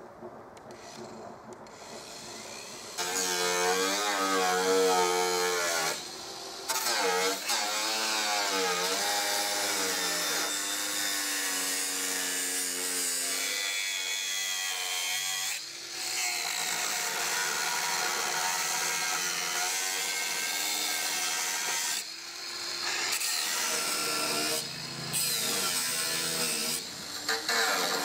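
Angle grinder cutting rusty corrugated metal sheet. It starts about three seconds in, and the motor's pitch dips and rises as the disc bites and eases. It cuts out briefly several times when the trigger is let go.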